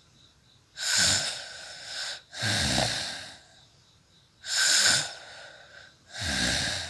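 A woman snoring in her sleep: four loud snores, one about every two seconds, each trailing off into a softer breath.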